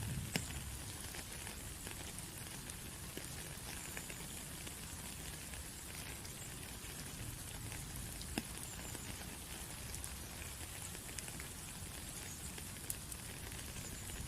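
Steady rain hissing, with individual raindrops landing as sharp, irregular ticks, a few of them louder than the rest.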